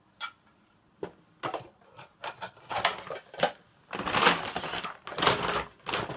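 Shopping bag rustling and crinkling in irregular bursts as hands rummage through it, loudest about four to five and a half seconds in.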